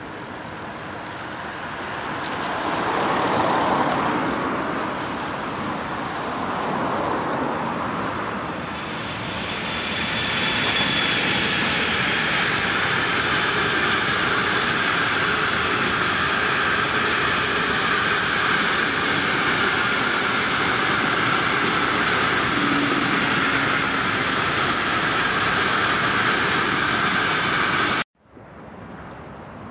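Long freight train of enclosed car-carrier wagons passing close by. The sound grows louder over the first few seconds as the train comes in, then holds as a steady rolling rumble with a high, even wheel-on-rail ring as the wagons go by. It cuts off abruptly near the end, leaving quieter steady road traffic.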